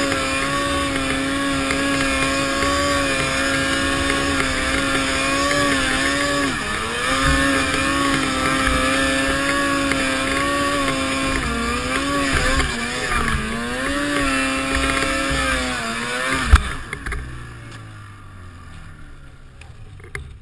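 Snowmobile engine running under throttle as the sled rides down through deep snow, its pitch dipping and rising several times with the throttle. About sixteen seconds in there is a sharp thump, and the engine drops to a low idle for the rest.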